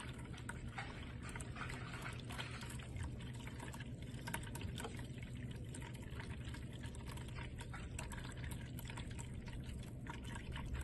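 Pet water fountain running: a thin stream of water trickling and splashing steadily into its plastic basin, over a steady low hum, with scattered small ticks and splashes.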